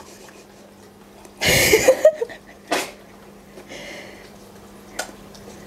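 A short, breathy burst of laughter about a second and a half in, followed by a shorter second laugh.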